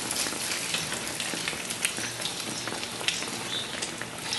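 Egg-dipped, milk-soaked bread slices frying in hot oil in a frying pan: a steady sizzle with frequent small crackles and spatters.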